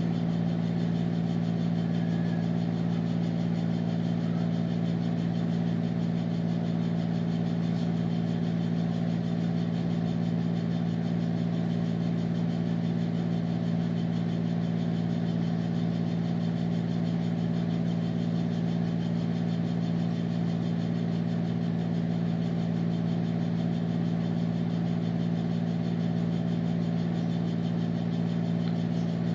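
Steady low hum, unchanging in pitch and level throughout.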